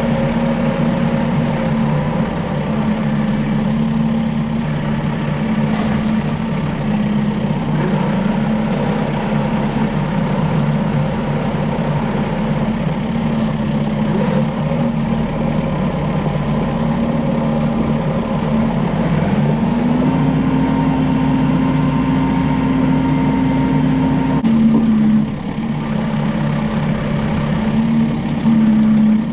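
A vehicle engine runs steadily. About two-thirds of the way through, its pitch rises, holds higher for a few seconds, then drops back.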